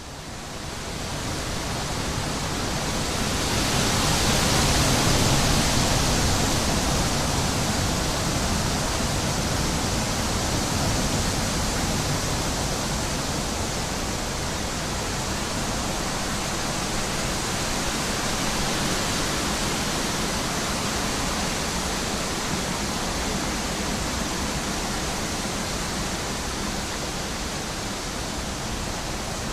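Wind sound effect: a steady rushing of wind that swells over the first few seconds, is loudest about five seconds in, then holds steady.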